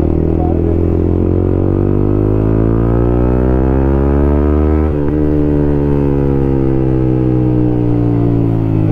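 Yamaha MT-15 v2's single-cylinder engine through a newly fitted aftermarket full-system exhaust, revs rising steadily for about five seconds, then falling steadily as the bike eases off.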